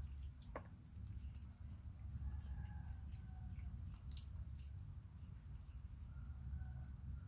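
A faint, high-pitched, steady insect-like trill that breaks off for about a second midway and then resumes, over a low background rumble, with a few soft clicks.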